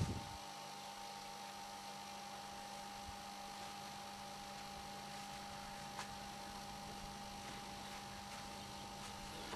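A steady electrical hum with a faint hiss, with a brief low thump at the very start and one faint click about six seconds in.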